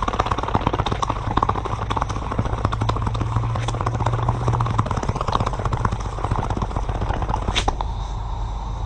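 Rapid, irregular crackling and sizzling as red-hot metal burns into a coconut husk and shell, with one sharper pop about three-quarters of the way through.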